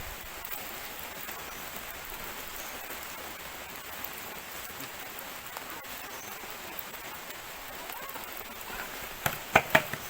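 Steady patter of light drizzle. Near the end, three or four sharp knocks come in quick succession, louder than the rain.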